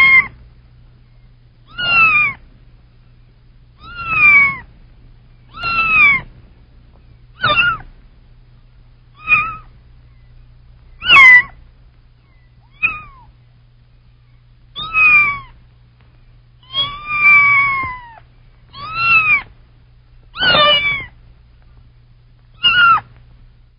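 Kitten meowing repeatedly: about a dozen short calls, each falling in pitch, every one and a half to two seconds, over a faint low hum.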